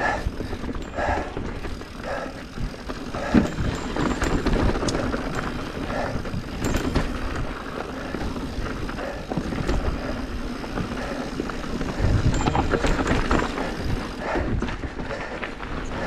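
Mountain bike riding down rocky dirt singletrack: tyres crunching over gravel and stones, the bike rattling and knocking over bumps, under a constant low rumble.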